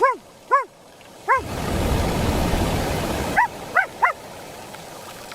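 A small dog yipping: six short, high barks, three spread over the first second and a half and three more close together a little over three seconds in, with a stretch of steady noise between them.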